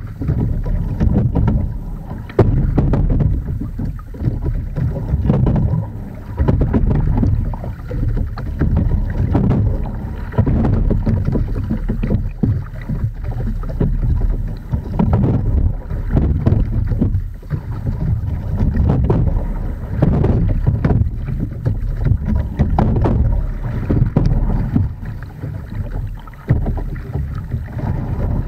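Single scull being rowed: water rushing along the hull, with low wind rumble on the microphone and clicks from the oars and rigging, swelling and easing with each stroke about every three and a half to four seconds.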